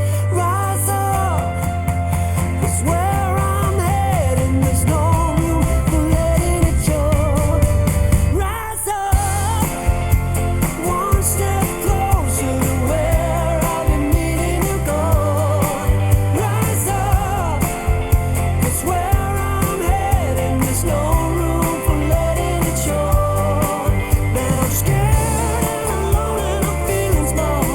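A pop-rock song with a sung vocal, drums and heavy bass, played back through Bowers & Wilkins PX7 wireless headphones and recorded from them. The music breaks off briefly about nine seconds in and then goes on with a regular beat.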